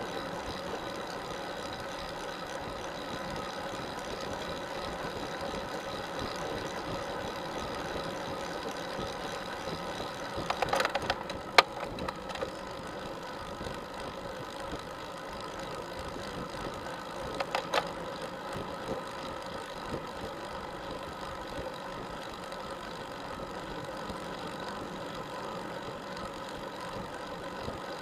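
Steady hum and road noise picked up by a camera mounted on a road bike climbing a hill, holding the same few pitches throughout. A short clatter of sharp clicks comes about ten and a half seconds in, and again about seventeen and a half seconds in.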